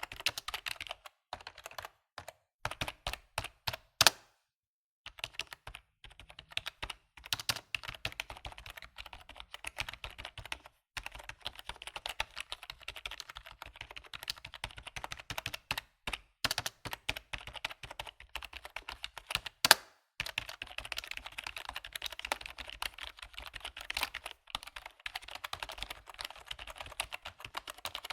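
Computer keyboard being typed on in quick runs of key clicks, with short pauses and a few louder single strikes near the start and about two-thirds of the way through.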